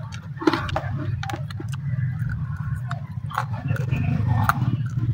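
Close-miked chewing of raw bird's eye chilies (siling labuyo): crunchy bites and wet mouth clicks and smacks, over a steady low rumble.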